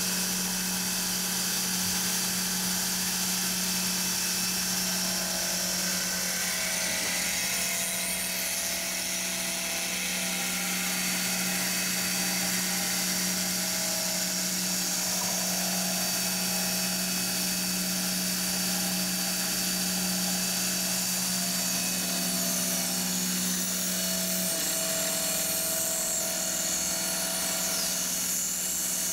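Milling machine spindle running a 40 mm Seco face mill across an aluminum plate, facing it down to its final thickness. The cut makes a steady, even sound: a constant low tone and a high tone over the hiss of cutting.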